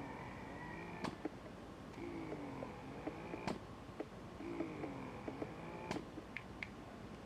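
Youha Gen 2 wearable breast pump, fully assembled with its flange covered, running at the highest level of expression mode. It makes a cyclic motor hum with a high whine, and each suction cycle ends in a sharp click, about every two and a half seconds, three times.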